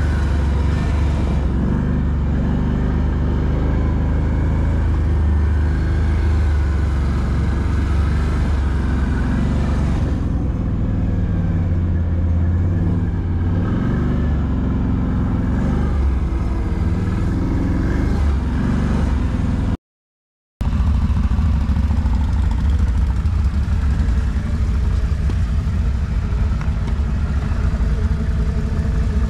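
ATV engine running steadily under way, loud, with the sound cutting out for under a second about twenty seconds in.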